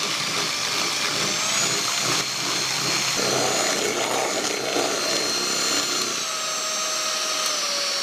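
Electric hand mixer running, its twin beaters whisking eggs, sugar and cake emulsifier in a stainless steel bowl: a steady motor whine whose pitch shifts slightly a few times. This is the stage where the eggs and sugar are beaten pale and fluffy.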